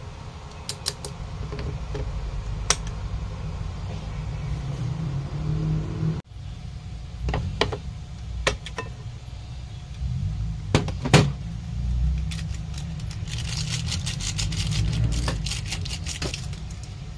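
Cooking handling sounds at an instant-noodle pot on an induction cooktop: chopsticks and the pot's clip-on handle clink and knock against the pot in scattered sharp clicks, over a steady low hum. Near the end comes a dry crackly rustle as a seasoning sachet is shaken out over the noodles.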